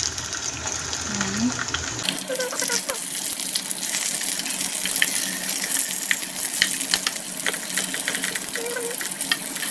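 Carrot sticks and sliced onion sizzling and crackling in hot oil in a frying pan as they are stirred with a spatula.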